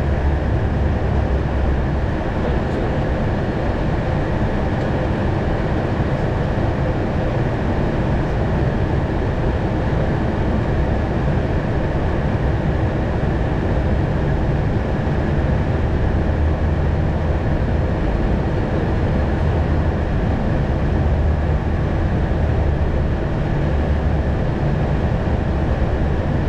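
Steady flight-deck noise of an Airbus A220 on approach: a constant rush of airflow and engine noise with a strong low rumble and faint steady hum tones.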